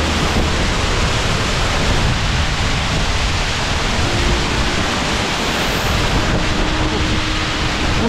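Waterfall pouring steadily: a loud, unbroken rush of falling water.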